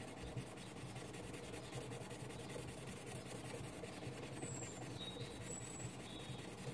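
Amethyst cabochon rubbed by hand on a wet 40/28-micron diamond plate with a rubber backing, giving a steady soft scratchy grinding. The sound is that of the coarser earlier scratches being lapped away.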